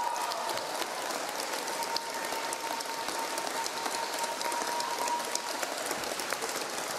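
Crowd applauding in a large hall: dense, sustained clapping. A single steady held tone sounds over it and fades out about five seconds in.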